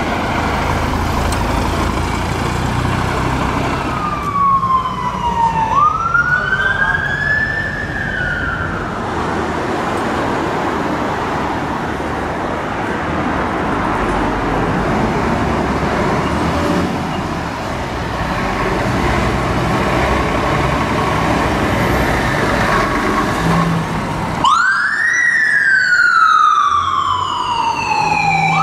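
Fire trucks' diesel engines running, with a siren wailing faintly a few seconds in: one slow sweep down, then up, then down again. Near the end, after a cut, a fire engine's wail siren starts loud, sweeping slowly up and down.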